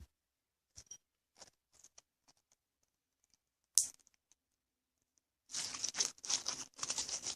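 Homemade clear slime being stretched and squished by hand, crackling and popping. A few faint clicks come first and a sharper click about halfway through; the dense crackling starts a little over five seconds in.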